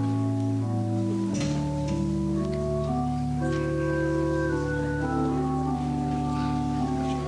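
Organ playing slow, sustained chords over a held bass note, the bass dropping to a new note about a second in and the upper line stepping down note by note.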